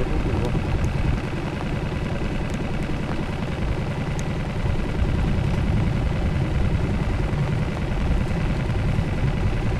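A boat's motor running steadily, a low, even drone as the wooden boat moves along.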